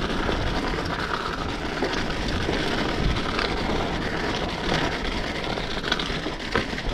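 Mountain bike rolling down a wet dirt trail: steady tyre and wind noise on a handlebar-mounted camera, with occasional clicks and knocks from the bike over the bumps.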